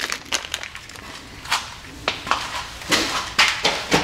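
Irregular clicks and knocks from handling the brake rotors and their attaching bolts, about ten in all, a few with a short high ring after them.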